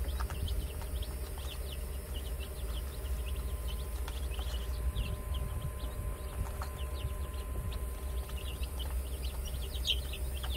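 A brood of three-day-old Easter Egger chicks peeping constantly: many short, high, falling peeps a second, over a steady low hum.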